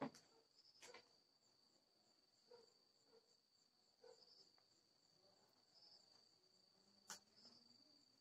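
Near silence: a faint, steady high-pitched insect trill, like a cricket, with a few faint knocks, the clearest about seven seconds in.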